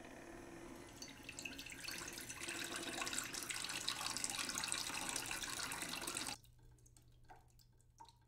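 Water pouring in a thin stream into a drinking glass, the splashing growing louder as the glass fills, then cutting off suddenly about six seconds in, followed by a few faint drips.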